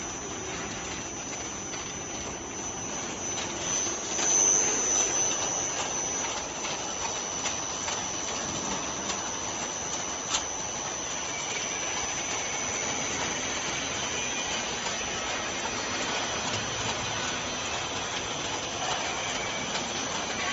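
Vegetable processing-line machinery running: a steady mechanical noise with a thin, high, unchanging whine over it. A brief louder swell comes about four seconds in, and a single sharp click about ten seconds in.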